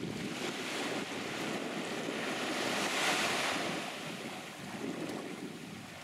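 Small waves washing up a sandy beach: a hissing wash that swells to a peak about three seconds in and then eases off, with wind buffeting the microphone.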